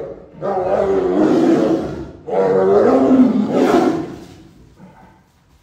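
Adult tigers roaring during mating: two loud, long roars, one after the other, the second dropping in pitch before it fades.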